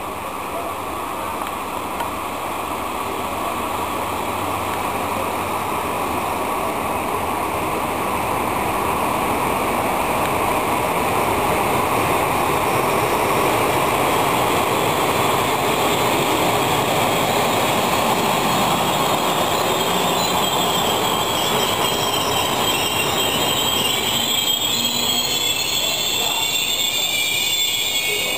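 Electric-locomotive-hauled passenger train approaching and rolling past, its wheels running on the rails and growing louder over the first ten seconds or so. In the last third a high metallic squeal from the wheels comes in.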